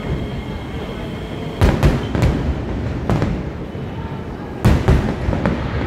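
Aerial fireworks shells bursting, heard from afar: about seven sharp bangs in clusters, a group of three about a second and a half in, one near three seconds, and another group near the end.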